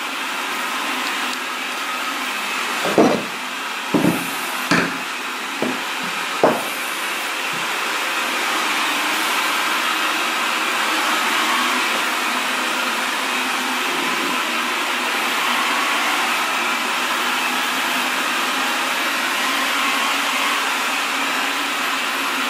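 A steady hiss, with about five short knocks between roughly three and six and a half seconds in, as two small HF transceivers are moved about on a tabletop.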